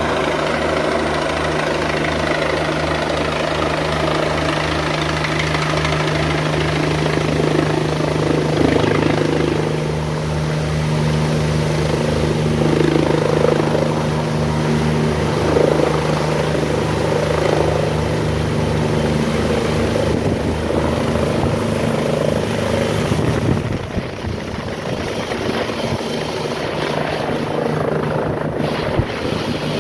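A helicopter landing: its rotor beats steadily under a steady engine whine, loud and close. About three-quarters of the way through, the low rotor beat fades and a rougher rushing sound takes over.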